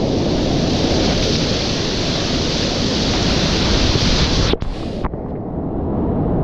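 Whitewater rapids rushing loudly right at a kayaker's camera microphone, a dense hiss of crashing water that turns suddenly muffled about four and a half seconds in.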